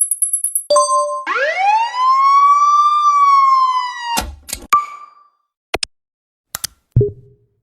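A string of short sound effects: a brief high beep, a two-note blip, then a siren-like tone that rises for about a second, holds for about two more and cuts off suddenly. It is followed by sharp clicks, a short ding and a few soft thumps.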